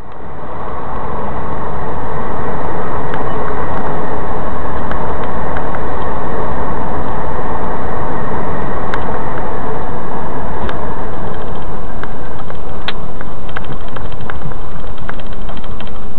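Steady vehicle engine and road noise, as picked up by a dash camera, fading in over the first couple of seconds and then holding loud and even, with scattered faint clicks.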